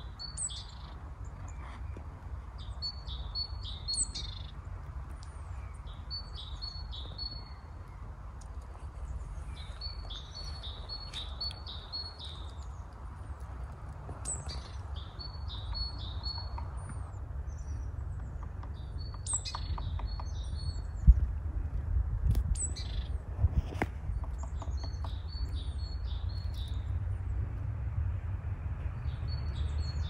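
Songbirds singing in a pine forest: one bird repeats a short phrase of several quick high notes every couple of seconds, with other thin high chirps between. A steady low rumble runs underneath, growing louder in the second half, with a few sharp clicks.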